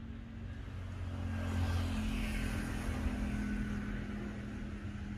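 A motor engine running with a steady low hum, swelling to its loudest about two seconds in and then easing off.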